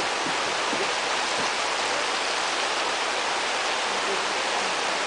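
Steady rush of water, a constant even hiss with no breaks.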